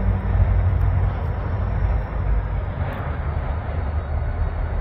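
Steady low rumble of a consist of EMD GP40-2 diesel-electric locomotives, with their 16-cylinder two-stroke engines, moving slowly toward the listener, mixed with road traffic passing on an overpass.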